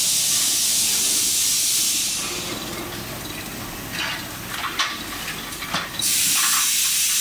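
CF 18CY tractor chassis running on a test rig, its gearbox giving a loud, high-pitched hissing whir. The whir falls away about two seconds in while the shift lever is worked, a few clicks of gear selection follow, and the whir cuts back in sharply near the end as a gear is engaged.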